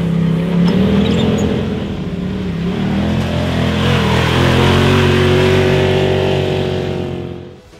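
Side-by-side UTV engines, one a Polaris RZR, revving and accelerating past on a dirt road, the pitch rising and falling as they drive by and away. The sound fades out shortly before the end.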